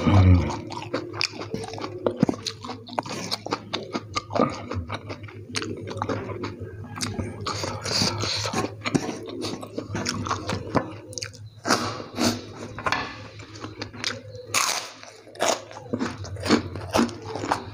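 Close-miked chewing of spicy fried instant noodles, with irregular wet mouth clicks and some crunching, in short bursts throughout.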